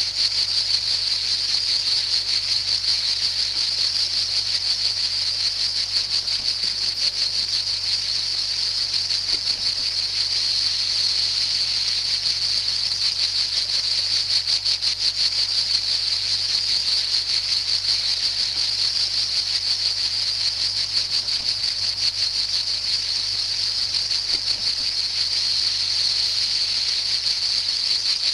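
Cicadas singing: a steady, shrill, unbroken buzz.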